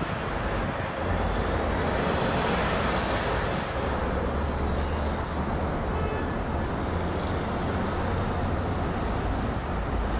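Airbus A330-900neo airliner flying high overhead, heard from the ground as a steady distant rumble and hiss from its Rolls-Royce Trent 7000 turbofans. The deep low rumble strengthens about a second in and then holds.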